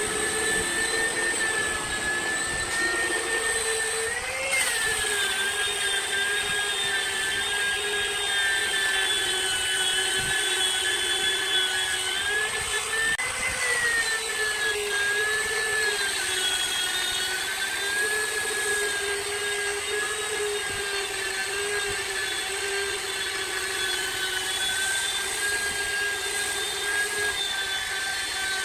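Angle grinder with a sanding disc running steadily against cedar wood spinning on a wood lathe, a high whine that rises and dips briefly in pitch as the disc is pressed on, about four and a half and thirteen seconds in.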